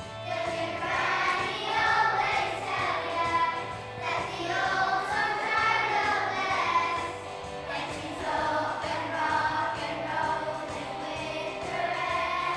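A group of children singing a song together over recorded backing music.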